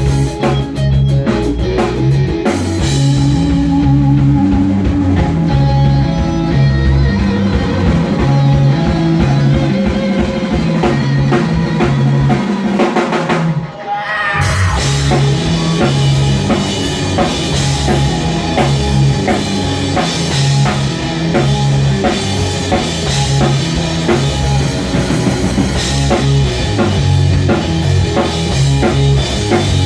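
Live rock band playing, with electric guitar from a Telecaster-style guitar over bass and drums. The cymbals and snare drop out about two seconds in, leaving bass and guitar, then after a short break near the middle the full band comes back in.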